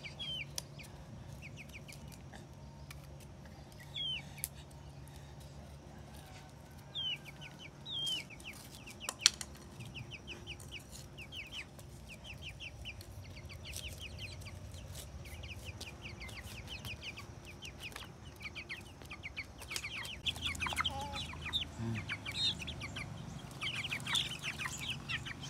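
Chickens clucking, with repeated runs of short, high peeps and a few louder calls; a single sharp knock about nine seconds in.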